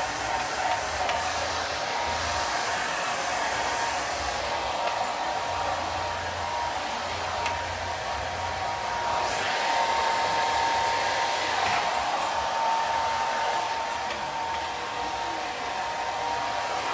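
Handheld hair dryer blowing steadily: a constant rush of air with a thin, steady whine from its motor.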